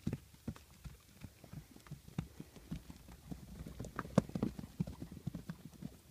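Hoofbeats of horses cantering and galloping over dry dirt ground: a quick, uneven run of dull thuds, loudest about four seconds in.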